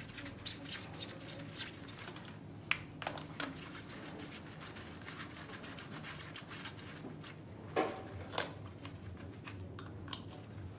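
Faint clicks and taps of a compression gauge's hose and screw-in fitting being handled and threaded into a spark-plug hole of the cylinder head, with a few sharper taps about 3 s and 8 s in, over a faint steady hum.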